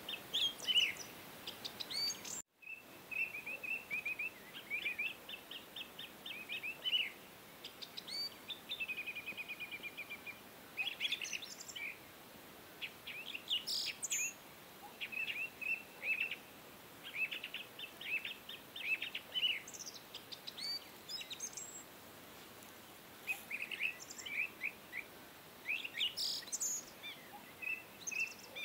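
Small birds chirping and twittering continuously in quick high runs, with a short trill about nine seconds in.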